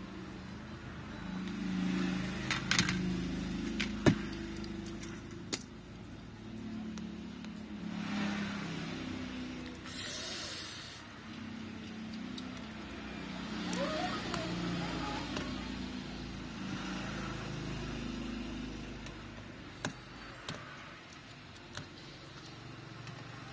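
Low, wavering hum of vehicle engines in the background, with a few sharp clicks of a precision screwdriver and small screws on the phone's metal midframe. The loudest click comes about four seconds in.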